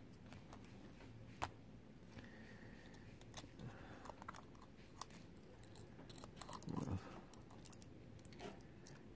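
Faint clicks and light handling noises of the Samsung Galaxy S7 edge's circuit board and small parts being picked up and set back into the phone's frame, with one sharper click about one and a half seconds in and a soft low sound near the end.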